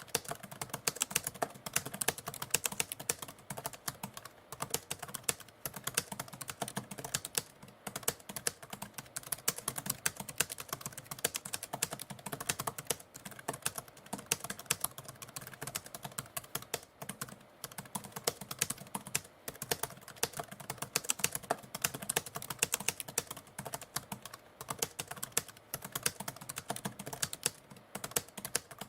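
Typewriter being typed on: a fast, continuous run of key strikes.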